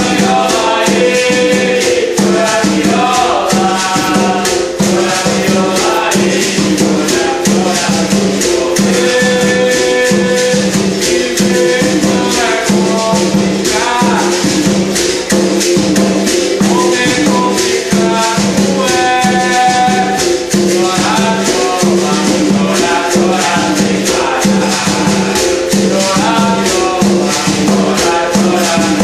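Berimbau viola played in a steady rhythm with a shaken rattle and a hand drum, and voices singing a song in recurring phrases over the berimbau's held note.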